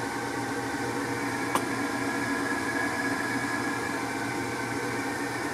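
Steady mechanical hum with a few constant tones, like a running fan or air-conditioning unit, and one faint click about one and a half seconds in.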